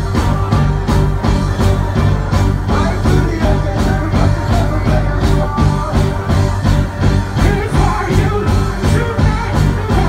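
A live reggae band playing loud, with heavy bass and a steady, even drum beat.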